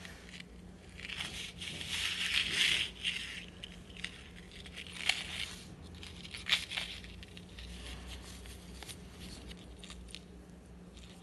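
Handling noise: a kraft paper bag crinkling under gloved hands, then a few sharp clicks as the steel chain and stone pendant are set down on it and moved, over a faint steady low hum.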